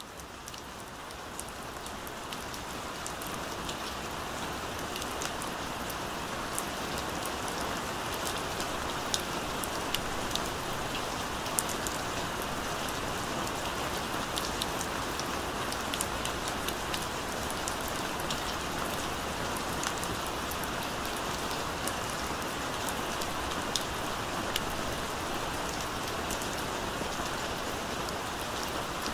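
Steady gentle rain falling, with scattered sharp drops standing out. It fades in over the first few seconds.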